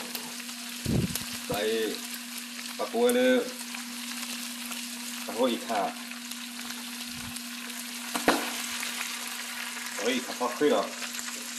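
Meat sizzling in a frying pan as it is stirred and scraped with a spatula, with a sharp knock about eight seconds in. A steady low hum runs underneath, and several short pitched sounds stand out, louder than the frying.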